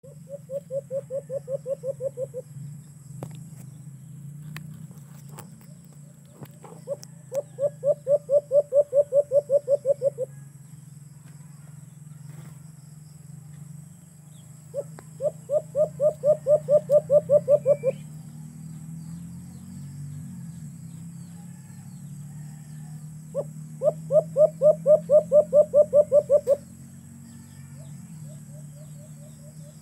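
Caged alimokon dove calling in bursts of rapid, evenly spaced coos, about five or six a second, each burst two to three seconds long and growing louder. Four bursts come about every seven or eight seconds, with a faint fifth near the end, over a steady low hum.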